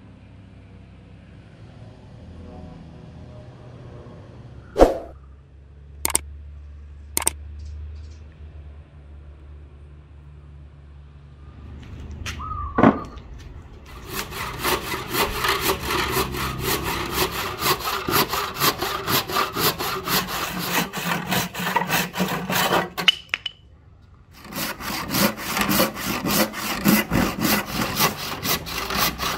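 Hand saw cutting through a thick ebony plank in quick, even back-and-forth strokes, starting about halfway through, with a short pause before the sawing resumes. Before the sawing, a low steady hum and a few sharp knocks.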